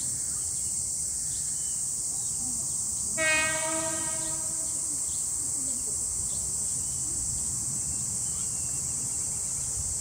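A Keikyu train's horn sounds once, about three seconds in: a single steady note held for about a second that then fades. Under it runs a steady high chorus of insects.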